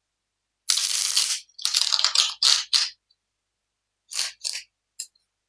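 Tarot deck being shuffled by hand: a longer swish about a second in, then a quick run of shorter ones up to about three seconds in, and two more brief swishes about four seconds in.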